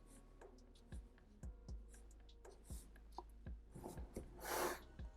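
Pencil drawing on paper: several faint short scratching strokes, then one longer stroke near the end.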